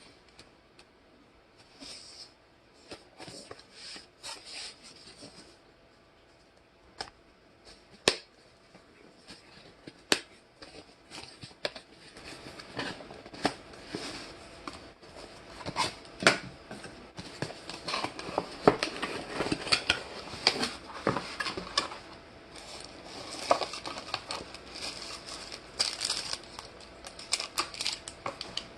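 Irregular handling noises: rustling and crinkling with sharp clicks and knocks, sparse at first with one loud click about eight seconds in, then busy and continuous for the second half.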